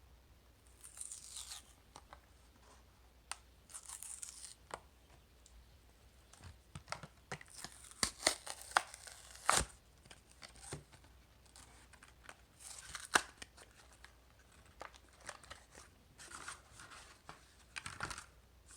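Hot Wheels blister-card package being torn open by hand: cardboard and plastic tearing and crinkling in irregular bursts, with sharp clicks in between.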